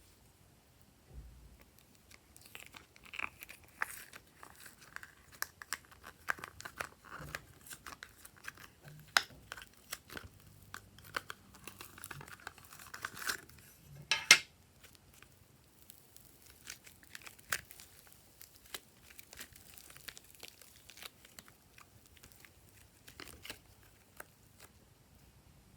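Glossy slime being squished and stretched by hand, giving many small, irregular sticky clicks and pops, with one louder pop about two-thirds of the way through.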